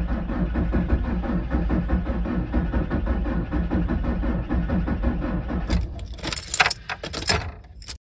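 Starter motor cranking the cold five-cylinder diesel engine of a VW T4 van in a steady pulsing run on a half-flat battery, without the engine firing: the van will not start with only three of its five glow plugs renewed. The cranking stops about six seconds in, followed by a few clicks and rattles.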